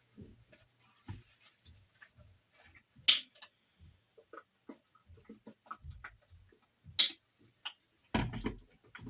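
Scattered small clicks, taps and handling noises of work at a bench. Two sharp clicks come about three and seven seconds in, and a louder bump follows near the end.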